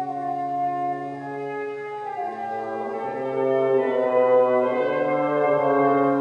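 Orchestral background music with slow, sustained brass chords that change every second or two and swell louder about four seconds in.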